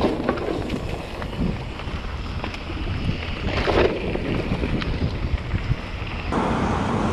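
Wind rushing over the microphone of a camera on a mountain bike riding a rough trail, with scattered clicks and knocks from the bike.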